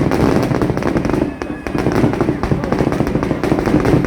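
Vedikkettu festival fireworks: a dense, unbroken crackle of many small bangs going off in rapid succession.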